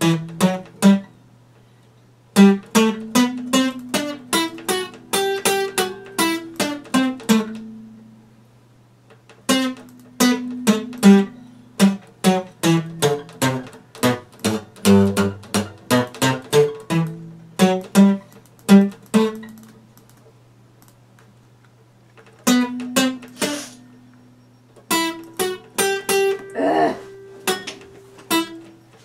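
Epiphone steel-string acoustic guitar played in plucked notes and chords, in phrases broken by three short pauses, over a steady low hum.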